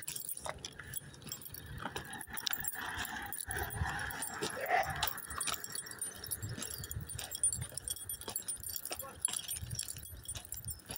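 Footsteps on a tarmac road with light clicking, and a brief rising whine about four and a half seconds in.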